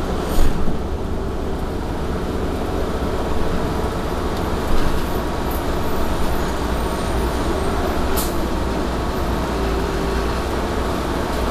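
Orion V CNG transit bus heard from on board while running: a steady engine and road rumble, with a short hiss of released air from the air brakes about half a second in and another about eight seconds in.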